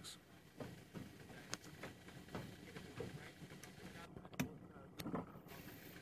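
Game-drive vehicle's engine idling faintly, with scattered clicks and knocks.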